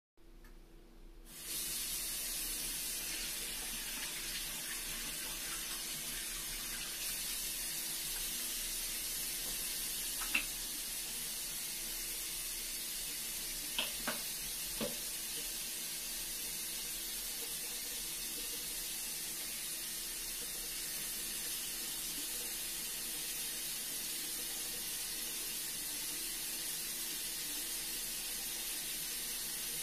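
Bathroom sink faucet turned on about a second and a half in, then water running steadily into the basin. A few small clicks sound around the middle.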